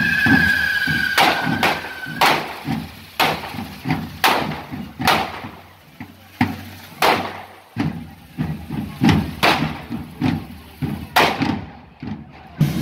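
Correfoc fireworks going off: sharp bangs about once a second, each dying away over half a second, over a background hiss. A whistling tone that falls slightly cuts off about two seconds in.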